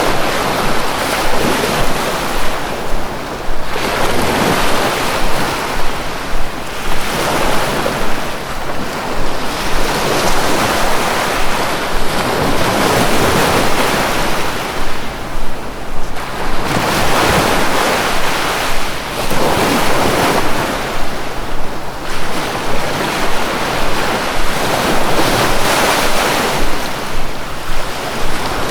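Sea waves: a steady rush of surf that swells and eases every few seconds.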